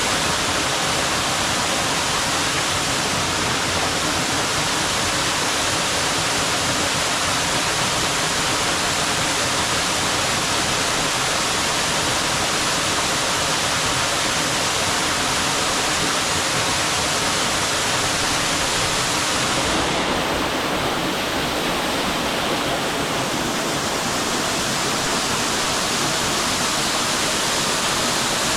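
A waterfall's steady rushing roar, water pouring over a wide ledge into the pool below, heard up close.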